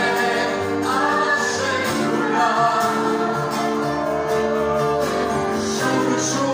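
Live music: singers performing into microphones over an acoustic guitar and an electronic keyboard, with a steady beat.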